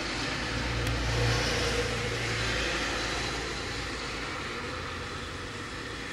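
Refuse collection lorry's engine running, swelling louder for about two seconds near the start and then settling, over a steady background hiss.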